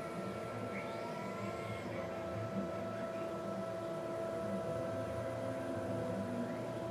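Leadshine closed-loop NEMA 23 stepper motors driving the PM25MV mill's ballscrews at 100 inches per minute, a steady whine of several tones that shifts in pitch about two seconds in as the axes change speed.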